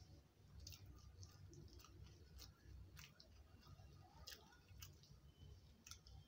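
Faint eating sounds: chewing with scattered soft clicks, about one or two a second, as fingers mix rice and aloo matar sabzi on a metal plate.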